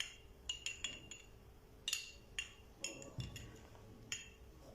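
Light, irregular clinks of a utensil against a glass of lemon water, each with a brief high ring, as the lemon seeds are fished out of the glass.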